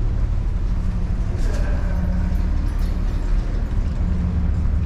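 Steady low drone of the ferry's engines and machinery, heard throughout the passenger deck while the ship is under way.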